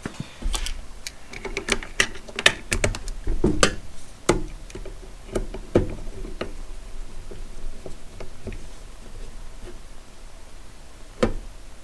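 Quick irregular plastic clicks and taps from hands handling a digital level and its batteries. They come thick and fast at first, thin out after about seven seconds, and end with one louder knock near the end.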